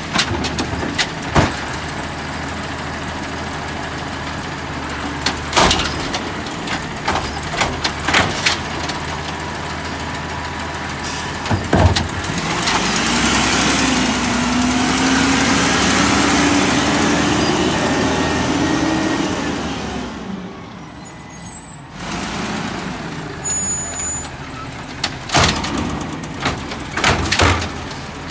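Natural-gas automated side-loader garbage truck working the curb, its engine running steadily under a series of sharp knocks and bangs as the arm grips, dumps and sets down carts. About halfway through, a hydraulic whine rises and holds for several seconds as the arm and packer run, then fades.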